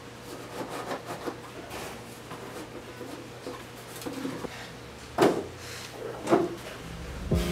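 Aquarium rocks being handled and set into gravel substrate: small scrapes and clicks of stone on gravel, then two louder knocks of stone against stone about five and six seconds in.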